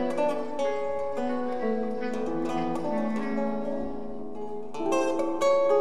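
Live trio of guitar, bass clarinet and hand percussion: plucked acoustic guitar notes over long held low bass clarinet tones, with a few sharp hand-drum strokes near the end.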